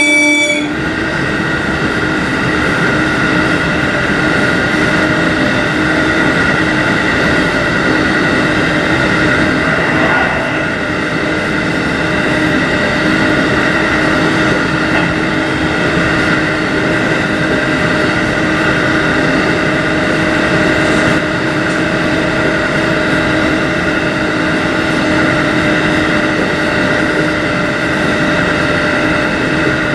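JR Hokkaido 711 series electric train running at speed: a steady rumble of wheels on rail with a steady whine of several tones. A horn blast cuts off just under a second in.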